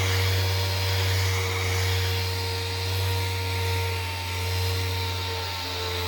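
Electric motor running at a steady speed, then spinning down with a falling pitch right at the end.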